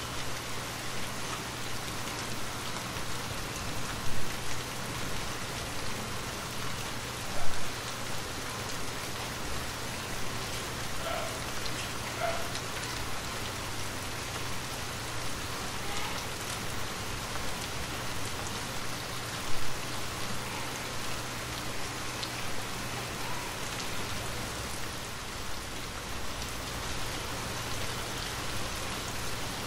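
Steady rain falling on a wet street, an even hiss broken by three brief louder hits.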